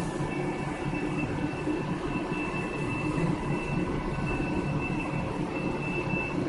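Hyupshin Drill Master 5000 CNC drilling machine running as its X and Y axes travel: a steady mechanical drone with a low hum and a thin high whine that keeps cutting in and out.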